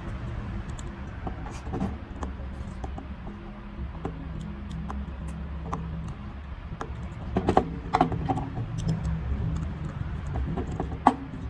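Small metal clicks and ticks of bus-bar strips and terminal screws being fitted onto bolted LiFePO4 cells and turned with a screwdriver. There is a cluster of clicks about two-thirds of the way in and one sharp click near the end, over a steady low hum.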